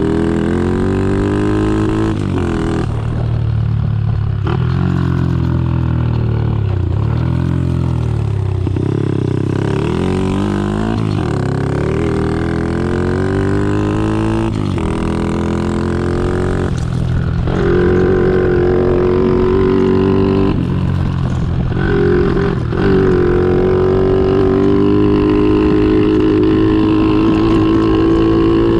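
Honda SL70's small single-cylinder four-stroke engine running as the motorcycle is ridden. Its pitch rises and falls over and over, with brief breaks, then holds steadier and a little louder from about halfway on.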